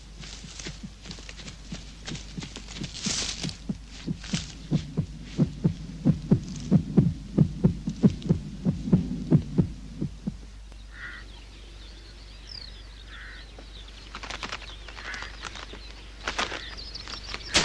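A film sound effect of a heartbeat-like throbbing, about two to three low thumps a second, growing louder over the first ten seconds and then stopping. Faint high chirps and whooshes follow.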